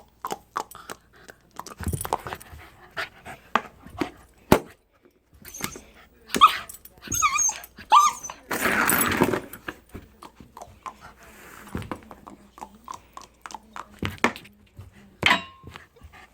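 A dog at play: scattered clicks and knocks, a few short high whines around the middle, and a rushing, huffing burst of breath or shaking just after.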